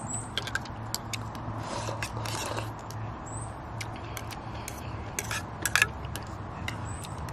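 Metal spoon clinking and scraping against a stainless steel camping bowl while eating, in scattered sharp clinks, the loudest a quick pair about six seconds in.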